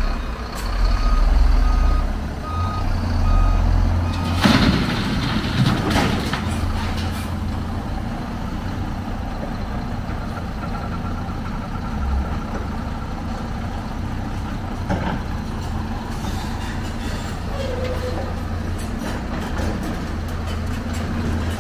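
Heavy diesel machinery (excavator and dump truck) running steadily at a low drone, with a reversing alarm beeping at the start. Scrap metal clanks and rattles loudly about four to seven seconds in, with more scattered clanks near the end.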